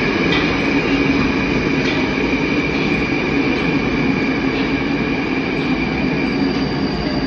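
Moscow Metro train of the Moskva-2020 type pulling into an underground station, its wheels rumbling on the rails over a steady hum and high whine from the running gear, easing off slightly near the end.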